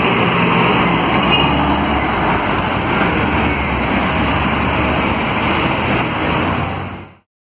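Volvo B9SALF articulated city bus pulling away from the stop, its diesel engine running steadily under load amid street traffic. The sound cuts off suddenly near the end.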